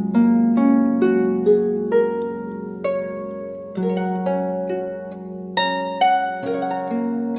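Slow, gentle instrumental music: single plucked notes, about one or two a second, each ringing out and fading over held lower notes.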